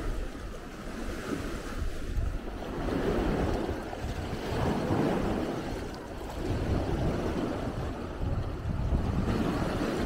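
Wind blowing over the microphone and small lake waves washing on the shore, a steady rush that swells and eases every couple of seconds.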